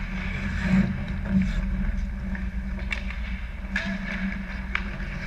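Ice hockey play: skates scraping across the ice and a few sharp clacks of sticks and puck, over a steady low hum.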